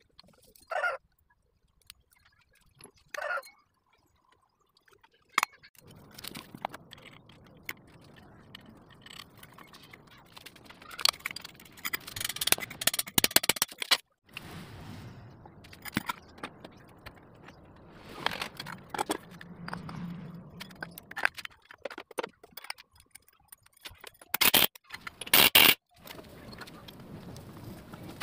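Scooter CVT parts being handled and fitted: scattered metallic clicks and knocks, with several louder bursts of clatter in the second half.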